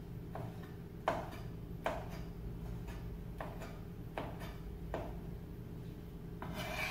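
Chef's knife chopping roasted poblano peppers on a plastic cutting board: the blade knocks on the board about every three-quarters of a second, with a short rasping noise near the end.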